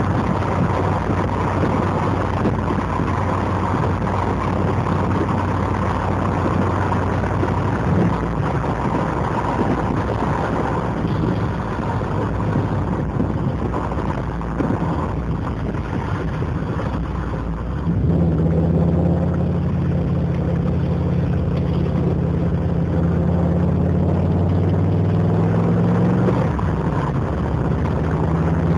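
TVR Wedge's Rover V8 burbling on the move, heard from inside the car. About two-thirds of the way through it gets louder and the revs climb slowly, and the note shifts again near the end.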